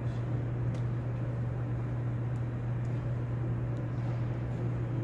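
Room tone of a large cathedral interior: a steady low hum under an even wash of background noise, with a few faint ticks.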